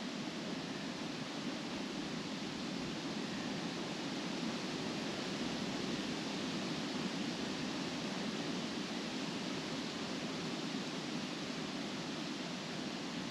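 Wind blowing through trees, the leaves rustling in a steady rush.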